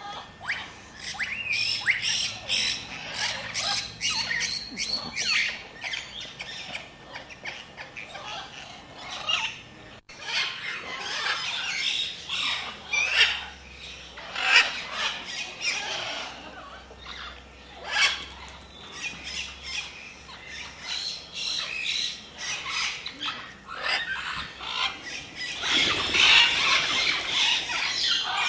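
Parrots calling, with many short squawks and chirps at irregular intervals. The calls are loudest and densest near the end.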